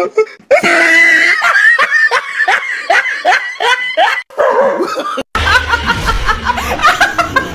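A person laughing hard in quick repeated bursts. About five seconds in it cuts off abruptly, and music with short repeated notes over a low hum begins.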